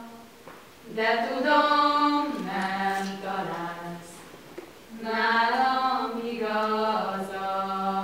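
Female voices singing a Bihar Hungarian folk song unaccompanied, in long held phrases. One phrase begins about a second in, there is a short breath pause just past the middle, and then the next phrase.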